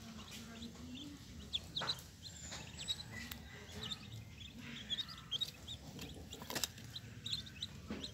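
Newborn ducklings peeping: many short, high chirps scattered throughout, with a few sharp knocks in between.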